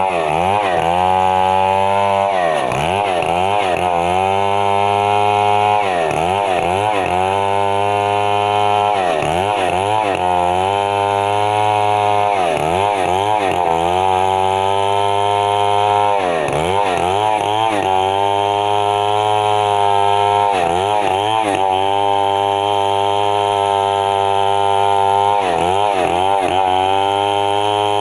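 Stihl MS 070 two-stroke chainsaw running at high revs. Its engine note drops sharply and climbs back again and again, every few seconds, as the chain bogs down in mahogany and recovers.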